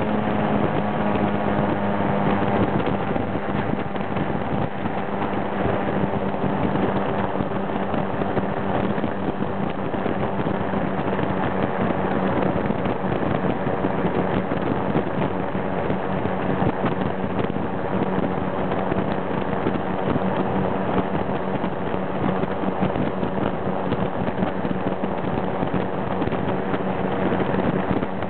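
Light aircraft's piston engine and propeller droning steadily, with wind rushing over the microphone.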